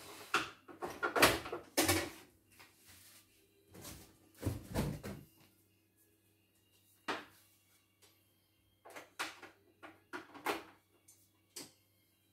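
Knocks and clunks of a portable embroidery machine being handled and fitted together on a workbench, bunched in the first half with a few sparser ones later, over a faint steady hum.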